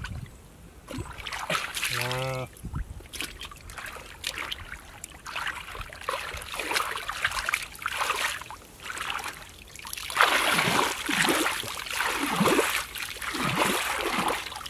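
Shallow muddy water splashing and sloshing as hands grope in it and bare feet shift. The sloshing gets louder and comes in repeated surges in the second half. A brief pitched sound is heard about two seconds in.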